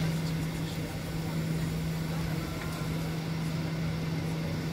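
Boeing 737-800 cabin noise while taxiing onto the runway: the CFM56-7B jet engines running at low thrust as a steady hum with one constant low tone, heard through the cabin.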